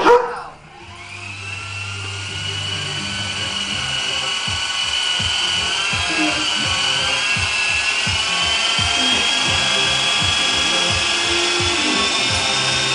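Small remote-controlled toy helicopter's electric motor and rotors spinning up about a second in, then running with a steady high whine that creeps slowly upward in pitch.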